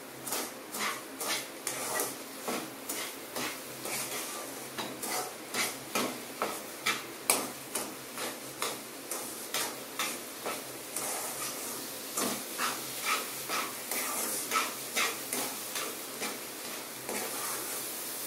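A spatula stirring and scraping a thick mix of cooked moong dal, roasted wheat flour and sugar around a non-stick kadai, in quick regular strokes about two a second.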